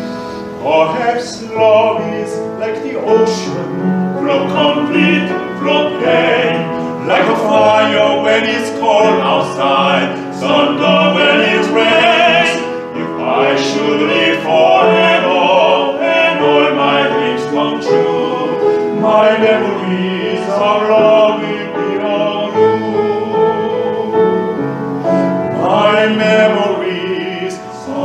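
Classically trained opera-style singing with piano accompaniment, sung with vibrato.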